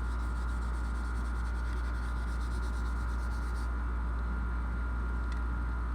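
Steady low electrical hum with a thin steady tone and hiss, unchanging throughout, and one faint tick near the end.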